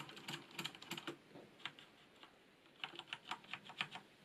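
Keys of a Corsair Strafe mechanical keyboard with Cherry MX Red linear switches being pressed: a quick run of light key clacks, a pause of about a second and a half, then another run near the end.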